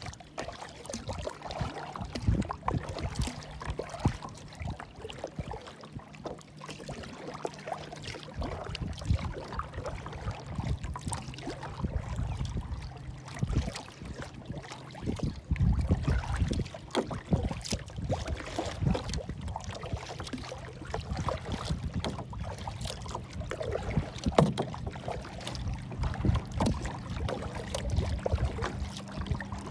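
Choppy lake water slapping and splashing against a plastic kayak hull, with wind gusting on the microphone. A steady low hum runs underneath.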